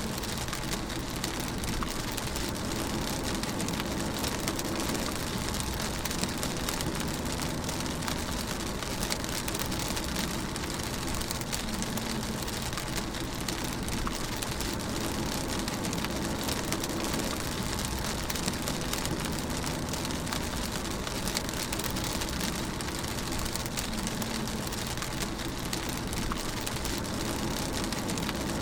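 Steady rain on a car, heard from inside the cabin while driving, with a low rumble underneath.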